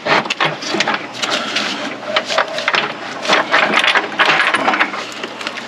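Irregular clicks, knocks and rattles of hard parts being handled and tugged while the intake manifold is worked loose from a stubborn connection.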